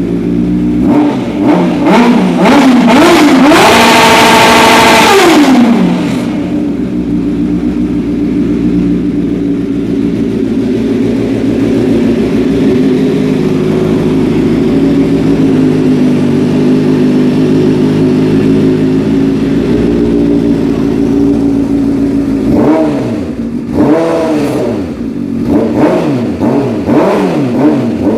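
Vehicle engine rumbling loud through its exhaust. A few blips in the first seconds build to a high rev held for about two seconds, which then drops back to a steady idle. Several quick throttle blips come near the end.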